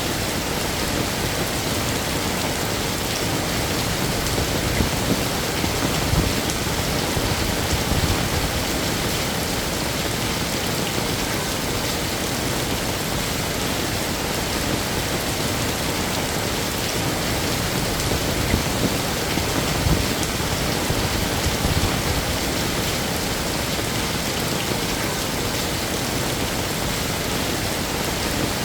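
Heavy rain falling steadily, a dense even hiss of drops on hard surfaces, with a few low swells in loudness along the way.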